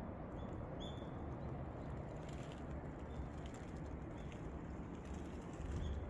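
Steady rush of water from a cascading, multi-tiered waterfall, with a bird giving a few short high calls over it, about a second in and again near the end.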